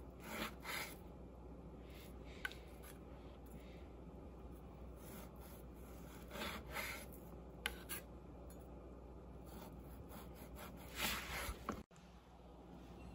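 Chef's knife slicing raw beef flank steak on a wooden cutting board: a few faint drawn slicing strokes, with light clicks of the blade against the board.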